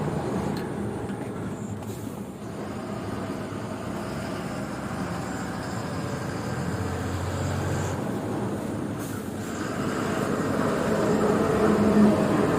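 Lorry running on the road: a steady engine and road rumble that grows louder over the last few seconds.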